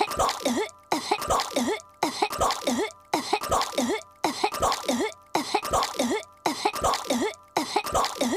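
A cartoon girl's voiced coughing fit, choking on chewing gum. The same short clip is looped end to end, so the identical coughs repeat about once a second.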